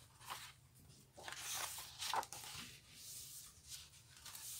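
Pages of a large hardcover picture book being turned: a few soft paper swishes and rustles, the strongest about two seconds in.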